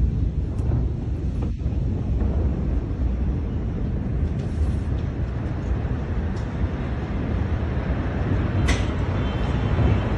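A steady low rumble, with a few sharp clicks near the end.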